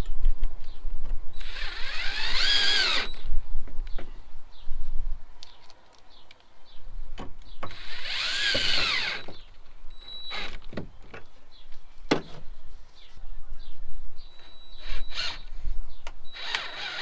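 Cordless drill driving screws into a metal bracket: the motor whirs up in pitch and back down in three short runs of about a second and a half each, with small clicks and knocks between them.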